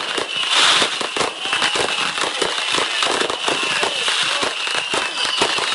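Fireworks going off: a dense, continuous crackling of many small reports, with a louder burst about half a second in.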